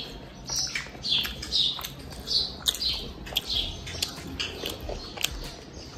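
Short high chirping calls repeat about twice a second, many of them dipping in pitch, with light clicks from someone chewing pizza.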